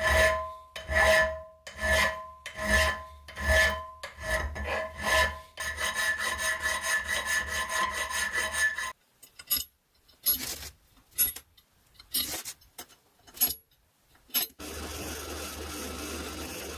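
Hand file scraping across the edge of a leaf-spring steel knife blank clamped in a vise. At first there is about one stroke a second, each leaving the steel ringing. Then the strokes come fast and run together, then come singly with gaps between. Near the end a drill press starts running steadily, boring a hole through the steel.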